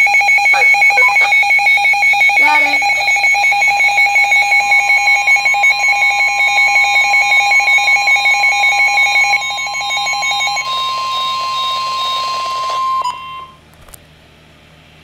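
Weather alert radio sounding a severe thunderstorm warning: a rapidly pulsing electronic alarm over the NOAA Weather Radio 1050 Hz warning tone. About nine and a half seconds in the pulsing stops, leaving the steady alert tone, which cuts off sharply shortly before a faint hiss. The tone is the signal that a warning broadcast is about to follow.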